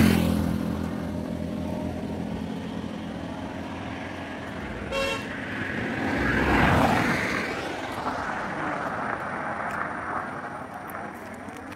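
Road traffic passing on a highway. A vehicle's engine is loud at first, a short horn toot sounds about five seconds in, and another vehicle swells up and passes close around seven seconds in before fading away.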